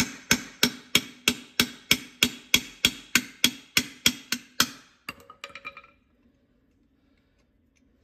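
Rapid, even hammer blows on a Massey Ferguson 135 tractor's brake drum, about three or four a second, each ringing like metal. The blows stop a little past halfway, followed by a few lighter metal clinks.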